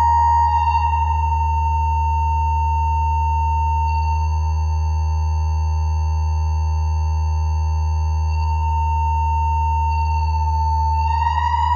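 Electronic drone of steady synthesized sine tones: a deep held tone under a clear higher tone, with fainter upper tones that step slightly in pitch every few seconds and slide upward near the end.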